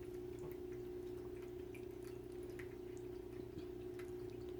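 Quiet room tone: a faint steady hum with a few soft scattered ticks.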